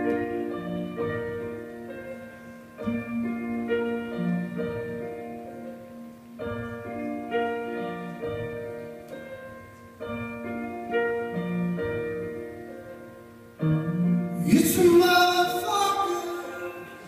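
Live band playing a short pitched instrumental phrase that repeats about every three and a half seconds. About three seconds before the end the crowd breaks into loud cheering and whooping.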